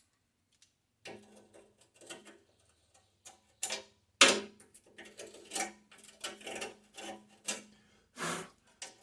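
Irregular clicks and metal clinks of hand tools working on the tractor's rusted fender-pan bolts, with one sharper knock about four seconds in.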